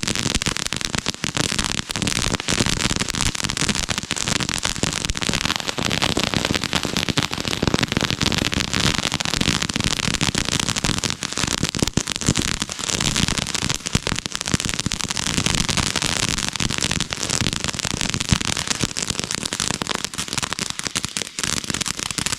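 Ground firework spraying with dense, continuous crackling.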